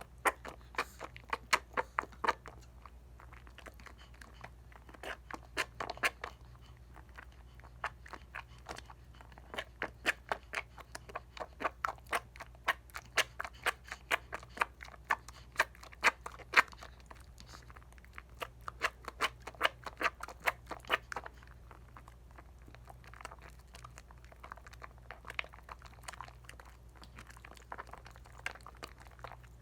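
Wet soapy hands working up a lather on a bar of Dial coconut soap: quick, squishing, clicking lather sounds in runs of several a second, thinning to scattered clicks about two thirds of the way through.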